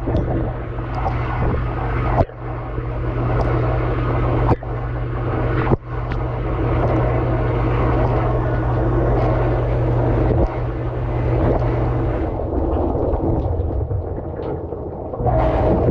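Dishwasher running mid-cycle, heard from inside the tub: water sprays and splashes steadily over the dishes and the camera housing above a constant low pump hum. The hum fades out about twelve seconds in and comes back near the end.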